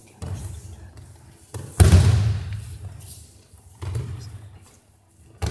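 Aikido breakfalls: children's bodies thudding onto the hall's mats as they are thrown. There are about four heavy thuds, the loudest about two seconds in, each with a hall echo after it.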